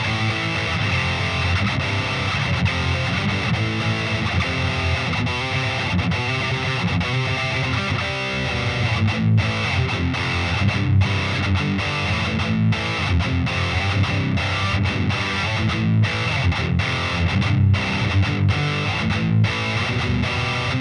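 Solar A1.7D LTD seven-string electric guitar played through a Peavey VYPYR 60-watt combo amp with heavy distortion, riffing continuously. In the second half the riff is broken by frequent short, abrupt stops.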